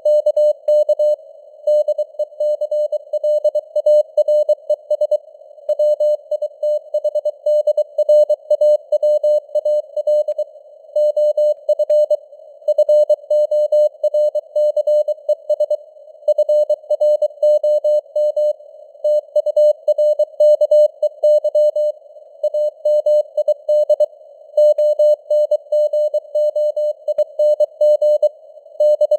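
Morse code at 23 words per minute: a single steady tone keyed on and off in quick dots and dashes, with short pauses between words, over a narrow hiss of simulated radio noise around the tone.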